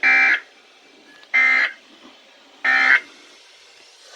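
Three short, harsh digital data bursts of an emergency-alert signal, about a second and a quarter apart. This is the SAME end-of-message code that closes a weather-radio alert bulletin.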